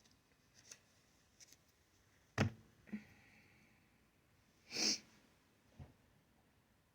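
A quiet small room with a sharp knock about two and a half seconds in and a softer one just after. A short breathy burst, like a sniff or quick exhale, comes about five seconds in, then a small click.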